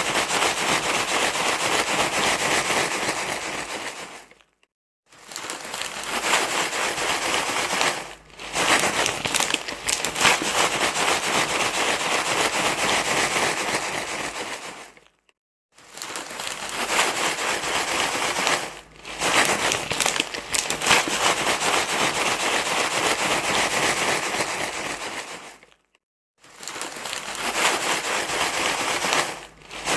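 Loud, dense crinkling rustle, a recording that repeats. It drops out to silence for a moment three times, about every eleven seconds.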